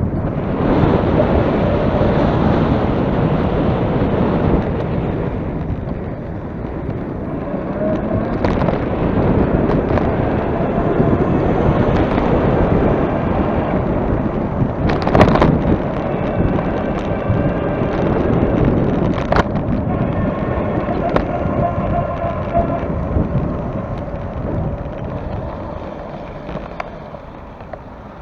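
Heavy wind buffeting on the microphone while moving into a headwind, a dense low rumble throughout. About fifteen seconds in there is a sharp knock, the loudest moment, and after it a steady pitched whine runs for several seconds.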